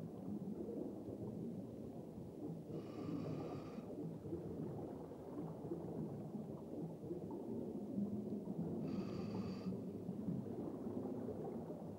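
Scuba diver breathing through a demand regulator underwater: two inhalations about six seconds apart, each about a second long with a whistling hiss, and a low rumble of exhaled bubbles between them.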